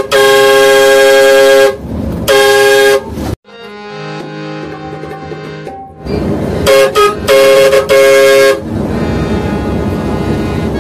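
Loud multi-tone vehicle horn sounding in long steady blasts: two long blasts, a quieter spell with fainter tones, then two short toots and another long blast. Steady road noise follows near the end.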